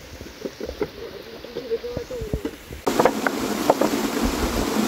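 Scattered light clicks and taps, then about three seconds in a steady rush of flowing stream water sets in abruptly, with a few clicks over it.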